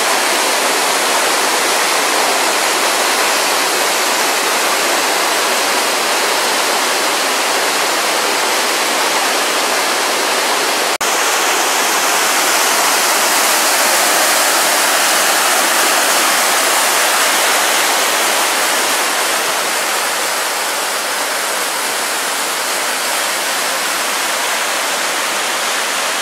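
Pistyll Rhaeadr waterfall in full flow after heavy rain: a loud, steady rush of falling water, with a momentary break about eleven seconds in.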